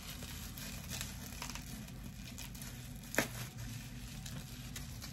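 Small plastic bag crinkling faintly and in snatches as it is handled, with one sharper crackle about three seconds in.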